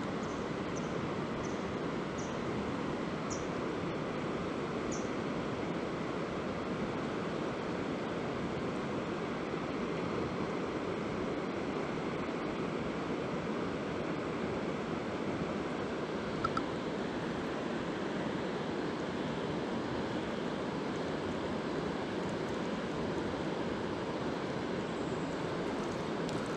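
Steady rushing of a full, fast river. There are a few faint high ticks in the first few seconds and a short click about sixteen seconds in.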